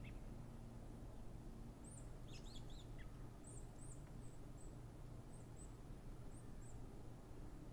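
Faint bird chirps: a string of short, very high notes, clustered from about two seconds in and thinning out near the end, over a steady low hum.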